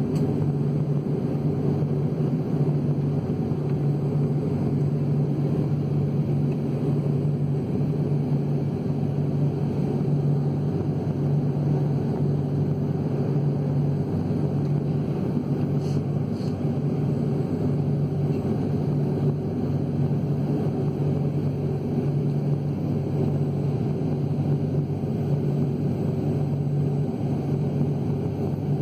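Steady drone inside an airliner cabin on the ground: the jet engines and air systems running evenly, with a strong low hum.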